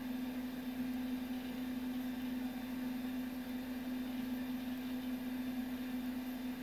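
Data General MV/3200 minicomputer running: steady fan noise with a constant low hum.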